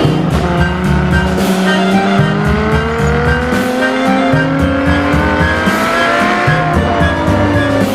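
Children's backing music with a steady stepping bass line, over an engine-like drone that slowly rises and falls in pitch.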